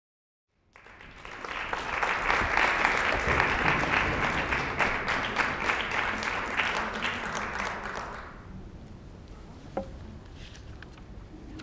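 Audience applauding, building up within the first couple of seconds and dying away about eight seconds in. A single small knock follows about ten seconds in.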